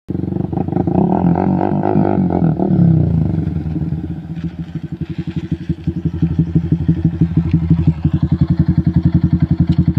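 Yamaha Y15ZR's single-cylinder four-stroke engine running under throttle for the first three seconds as the bike is ridden. It then settles into a steady idle with an even, quick pulsing beat.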